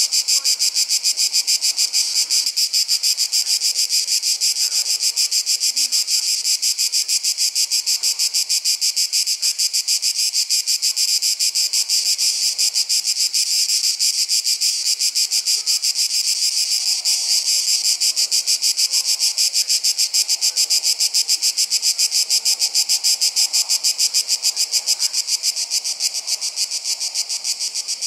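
Summer insect chorus: a steady, high-pitched shrill pulsing rapidly and evenly.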